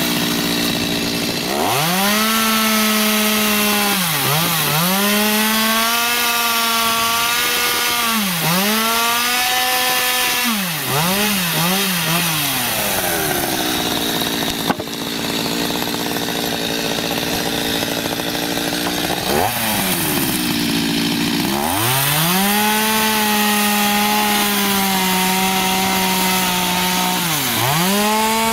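Two-stroke petrol chainsaw cutting the tops off wooden bridge piles: running at high revs with its pitch dipping briefly several times, falling back to idle for several seconds around the middle, then revving high again.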